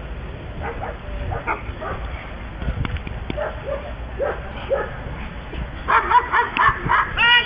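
Dobermann on the leash giving short whining yelps, then breaking into a quick, loud run of barks, about four a second, from about six seconds in.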